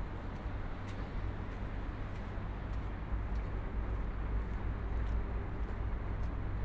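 Steady low rumble of distant city traffic, with a few faint, irregular clicks.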